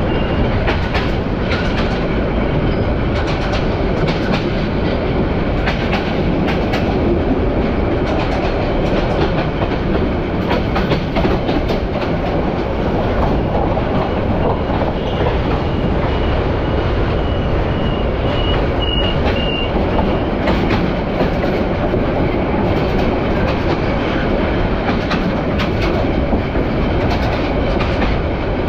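Bangladesh Railway passenger train running along the line, heard from inside a carriage: a steady rumble of wheels on track with frequent irregular clacks.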